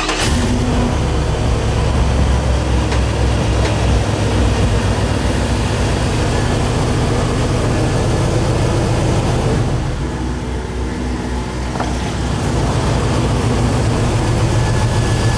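GM 5.3-litre V8 idling steadily just after start-up, freshly fitted with new spark plugs to cure a P0300 random misfire, briefly a little quieter about ten seconds in.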